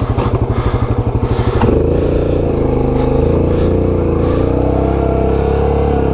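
Yamaha Grizzly 700's single-cylinder engine putting at low revs, then revving up a little under two seconds in and holding steady at higher revs.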